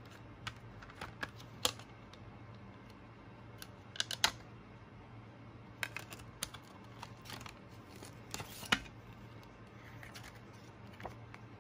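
Clicks and taps of a plastic CD jewel case being handled and opened, coming in clusters with the sharpest about four seconds in and near nine seconds, over a faint steady hum.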